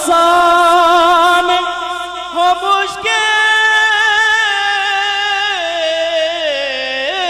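A man singing an Urdu hamd into a microphone, drawing out long held notes with a wavering ornament, the melody stepping down near the end.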